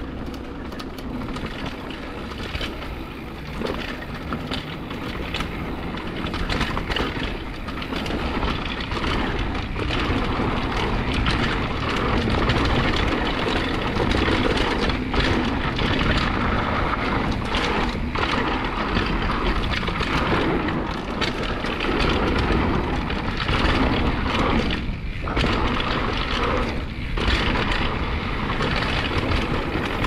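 Downhill mountain bike rolling over a dirt trail: a continuous rush of tyre and wind noise with frequent rattles and knocks from the bike, growing louder about a third of the way in as speed builds.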